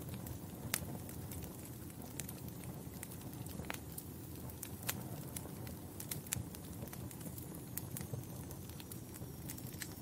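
Wood fire crackling in a fireplace: a steady low rumble of burning logs with irregular sharp pops and snaps, the loudest about three quarters of a second in.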